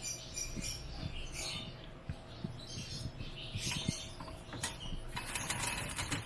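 Thick fish-sauce and sugar glaze simmering in a wok with small bubbling crackles. Near the end, fried chicken wings are tipped in, with a short rush of sizzle and scraping.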